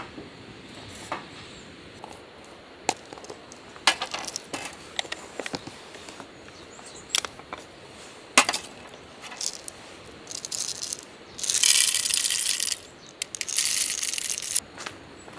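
Scattered light clicks and knocks of camp gear being handled, then coffee beans poured out of a jar, rattling down in two pours of about a second each near the end.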